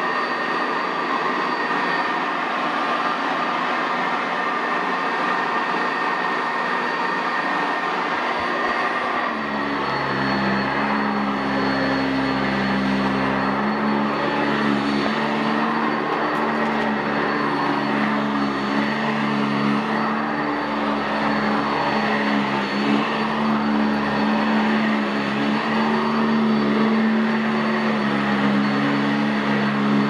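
Sanitaire SC679J commercial upright vacuum cleaner running steadily with a high whine. About nine seconds in, a lower hum joins in and stays.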